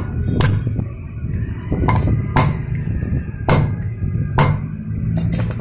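About six sharp metal-on-metal hammer strikes, irregularly spaced with a close pair near the end. They are driving a new ball bearing into the Hero Maestro scooter's gearbox casing by tapping at its edges, not its middle, so the bearing seats without damage.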